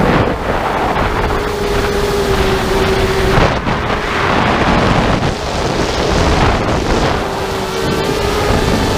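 FPV quadcopter's electric motors and propellers humming with a steady tone, buried under heavy wind rush on the onboard camera's microphone. The motor tone fades under the wind in the middle and returns near the end.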